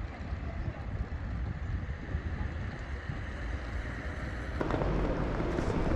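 Low, uneven rumble of wind buffeting the microphone over general background noise, which turns louder and busier about four and a half seconds in.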